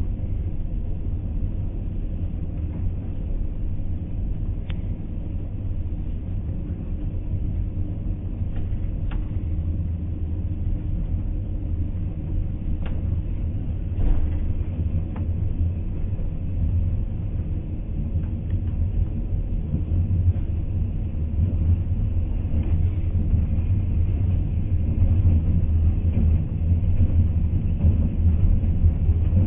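Train running on the rails: a steady low rumble with a few sharp clicks scattered through it, growing somewhat louder in the last third.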